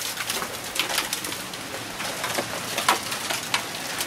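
Hail falling: gumball- to golf-ball-size hailstones striking pavement and parked vehicles in many irregular sharp clicks and knocks, over a steady hiss of rain.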